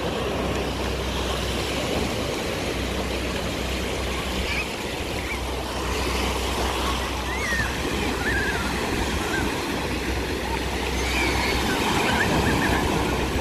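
Small sea waves breaking and washing up the sand in a steady rush of surf, with faint distant voices now and then.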